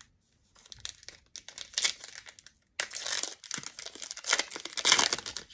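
Foil wrapper of a Select basketball card pack crinkling as it is handled and torn open, the crackling starting about half a second in and loudest in the second half.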